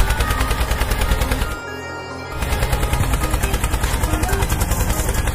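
A fast, continuous rattle like machine-gun fire, mixed with music. It breaks off for under a second about a second and a half in, leaving only a low hum, then starts again.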